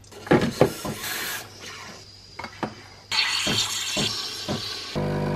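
Milk poured from a carton into a stainless steel milk jug, then a few light knocks as the jug is handled. About three seconds in, the Sage espresso machine's steam wand starts a steady hiss for about two seconds as milk is steamed, and a steady machine hum starts near the end.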